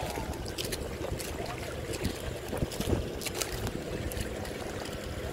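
A small boat's motor runs steadily, with water splashing against the wooden outrigger hull in short, irregular slaps.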